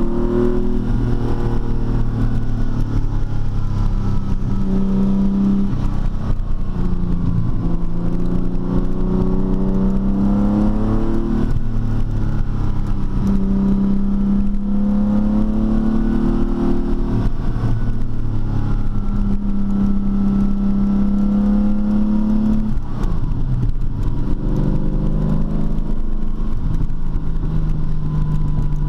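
TVR T350's 3.6-litre Speed Six straight-six engine pulling through the gears, its pitch rising and then dropping back at each shift several times over.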